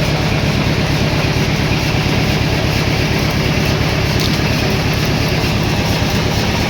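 Sawmill machinery running steadily: a loud, even engine-like drone with a fast regular pulse and a low hum.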